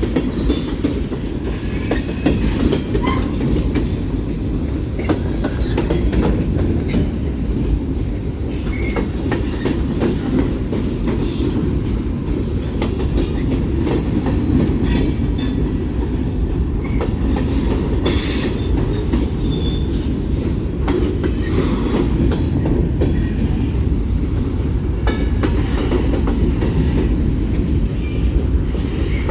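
Union Pacific freight cars rolling past at track side: a loud, steady low rumble with wheels clacking over rail joints, and brief high-pitched wheel squeals now and then.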